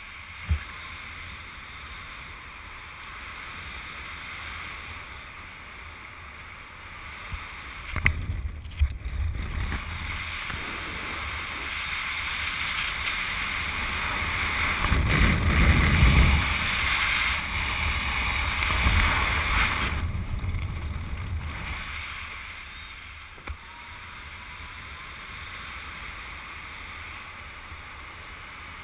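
Wind rushing over a camera microphone during a parachute descent: a steady hiss that swells into heavier, rumbling buffeting from about a third of the way in and dies back down before the end. A few sharp knocks come at the start, around the swell's onset and near the end.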